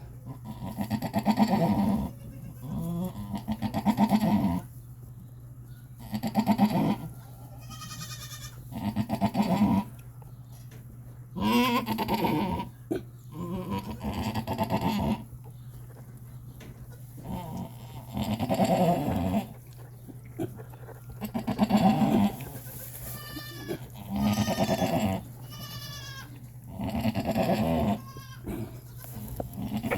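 Goats bleating repeatedly, one loud call every two to three seconds, some of them higher-pitched, while a doe is in labour. A steady low hum runs underneath.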